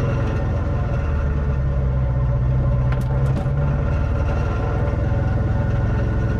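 Motorcycle engine running at steady revs, with a few faint ticks about three seconds in.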